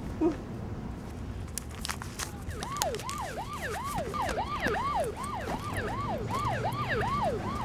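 Siren in fast yelp mode, a quick rising-and-falling wail repeating about three times a second, coming in about two and a half seconds in. Before it, a few faint rustles and clicks.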